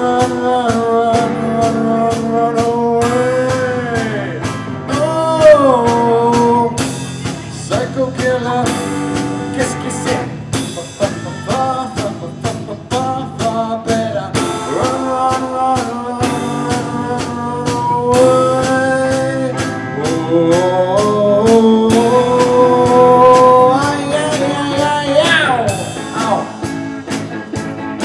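Live band playing with a drum kit and electric guitars, a lead line of long held notes bending up and down in pitch over the beat, and a quick rising slide near the end.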